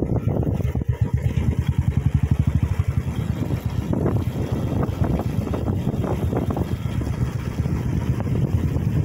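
A Royal Enfield motorcycle engine runs on the move, its exhaust beating in a fast, even pulse that is clearest in the first few seconds. Wind noise on the microphone sits over it.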